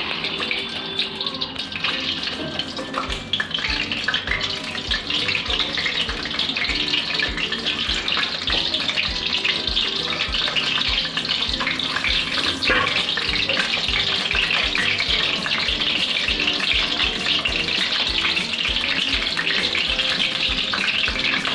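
Whole peeled boiled eggs sizzling in hot oil in a kadai: the sizzle starts sharply as the eggs go in and runs on as a steady, dense crackle. Background music with a steady beat plays underneath.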